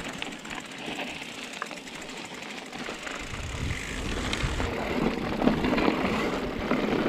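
Specialized mountain bike rolling along a rocky dirt singletrack: tyre noise over gravel with scattered small rattles and clicks, and a low rumble, heard from the handlebar camera, getting louder about three seconds in.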